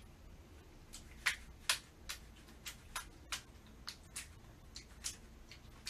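Rubber slide sandal tapping and pressing into a shallow puddle on a tile floor: a series of short, irregular taps, about two a second.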